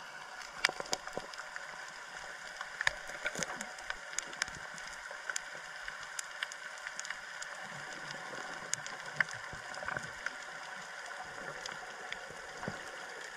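Water gurgling and bubbling close to the microphone, with many scattered small clicks and crackles over a steady hiss.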